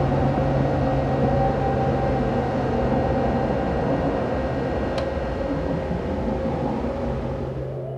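A steady droning hum made of a few sustained low and mid tones over a hiss, easing off slightly near the end, with a single faint click about five seconds in.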